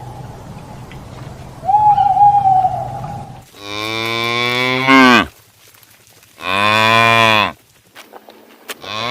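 Animal calls: a faint whistled call over a low hum, then two long, deep, drawn-out calls, each dropping in pitch at the end.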